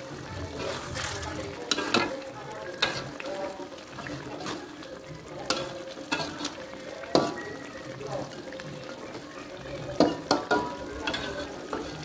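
A spatula stirring chicken in a thick green chili sauce in a metal wok, scraping and clinking against the pan many times at irregular intervals over the steady sizzle of the cooking sauce.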